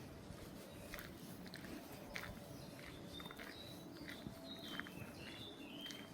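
Faint footsteps crunching on a path, with a songbird singing a short phrase of high notes that step downward in pitch about halfway through.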